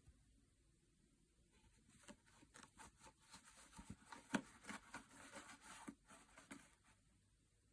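Near silence with faint, scattered small clicks and rustles, the sharpest one about halfway through.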